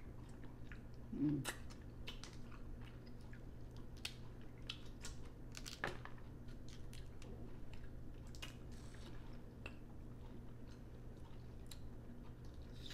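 Close-up eating of steamed blue crabs: chewing, with scattered short cracks and clicks of the shells being broken and picked apart, over a faint steady low hum. A brief voiced murmur comes about a second in.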